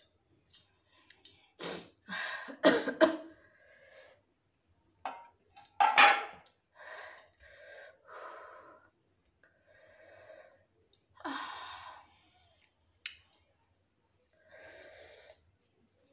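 A person coughing hard in a few sudden bursts, about two to three seconds in and again about six seconds in, with heavy, breathy exhales between them, a reaction to the burn of the hot chillies they are eating.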